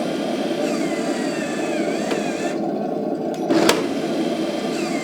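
1:16 RC tank with a TK26 mainboard: the sound unit's engine idle runs steadily while the barrel's recoil motor whines, falling in pitch, as it slowly draws the barrel back. About three and a half seconds in, a sharp shot sounds as the BB fires, and the recoil whine starts again.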